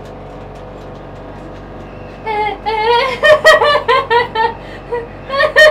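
A woman laughing hard in high-pitched, repeated peals inside a small enclosed cabin, starting about two seconds in after a steady low hum and loudest in the middle and near the end.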